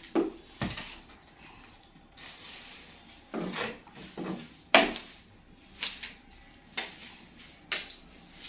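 A string of short scrapes and knocks about a second apart, the sound of someone moving things around on a tiled floor, with one sharper knock about halfway through.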